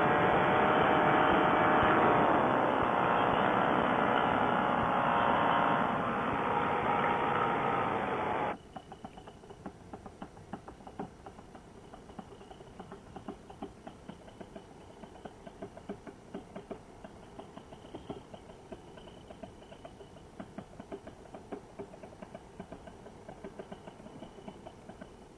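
Paramotor engine running steadily in flight, its pitch dipping briefly about two seconds in. The engine sound cuts off abruptly about eight and a half seconds in, leaving only faint, irregular small clicks.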